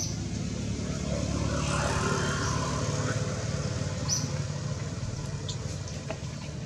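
A motor vehicle engine runs with a steady low rumble that swells about two seconds in, as if passing. A few short high chirps come through, at the very start and about four seconds in.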